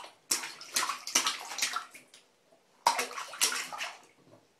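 A baby slapping the water in a plastic baby bathtub with his hands. The splashes come in two runs of quick slaps with a pause of about a second between.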